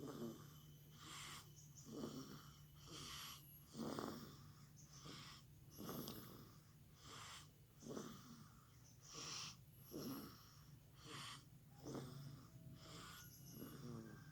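Faint snoring in deep sleep: a short snore and a breathy hiss take turns, about one full breath every two seconds.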